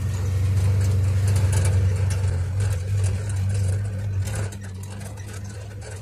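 Engine of a side-by-side utility vehicle running as it drives along a muddy dirt track, heard from inside the cab with light rattles. The engine note eases off about four and a half seconds in.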